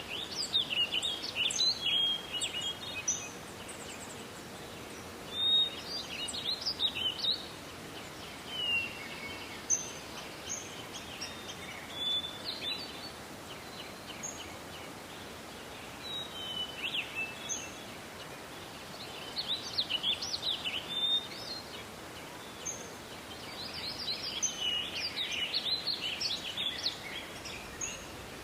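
Small songbirds chirping and twittering in scattered bursts, over a steady background hiss of forest ambience.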